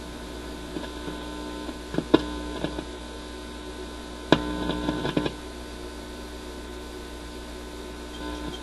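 Steady mains hum from an Admiral suitcase record player's amplifier and speaker while wires are being clipped onto the pins of its replacement stereo cartridge. A few sharp clicks and crackles break in about two seconds in, again a little after four, and around five seconds, as the leads touch the cartridge terminals.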